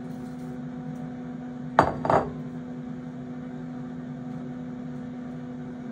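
Steady hum of a preheated Instant air fryer running. About two seconds in come two sharp clinks, a third of a second apart, as a glass mixing bowl knocks against the air fryer's cooking tray while carrots are tipped onto it.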